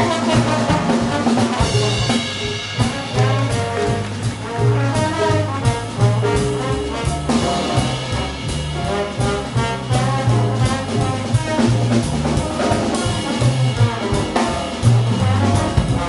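Jazz big band playing live: a brass section with trombones and trumpets over drum kit and double bass.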